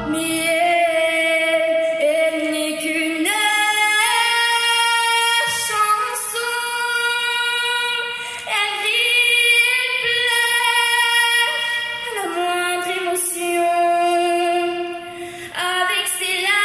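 A teenage girl sings long held notes into a microphone, her voice amplified over a stage sound system. The bass of the backing music stops just as it begins, leaving her voice almost bare.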